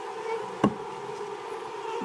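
Honeybees buzzing in a steady hum around the hive, with one sharp knock about a third of the way through.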